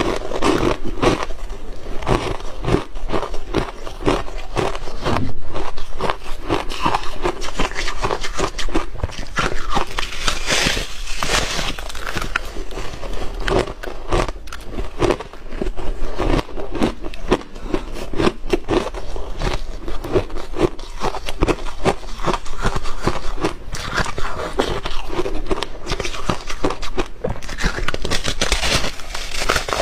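Biting and chewing a slab of powder-coated refrozen ice: dense, irregular crunching and crackling.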